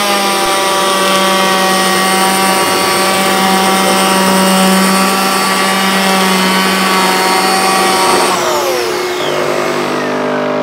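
Virutex CE223X electric planer-sander running at full speed on a door edge with a dust extractor hooked to it, a steady high whine. About eight seconds in it is switched off and winds down, its pitch falling, while the dust extractor's lower hum carries on.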